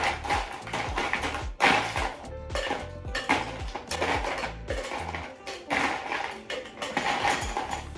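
Background music with a steady beat. Under it, ice and metal cocktail shaker tins clink and clatter as they are handled.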